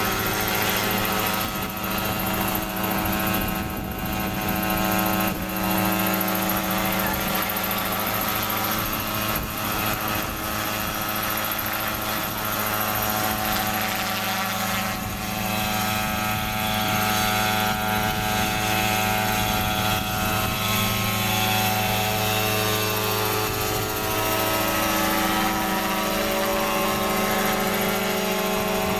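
Large radio-controlled helicopter flying, its engine and rotor running steadily as it hovers low and then climbs away. The engine note rises a little near the end.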